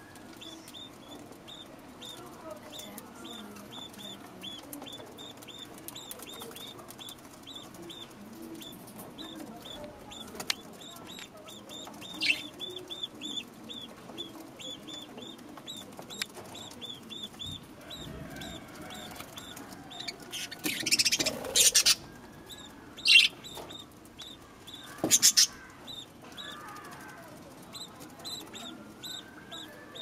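Budgerigars at a clay-pot nest box: a long run of short, high chirps, about three a second. Partway through come a few loud, harsh bursts.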